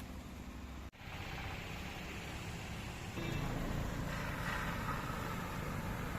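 A vehicle's engine running steadily under road and tyre noise, cutting out for an instant about a second in and growing louder from about three seconds in.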